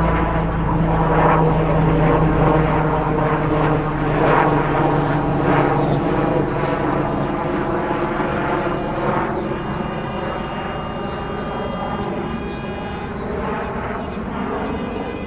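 A steady engine drone that slowly fades.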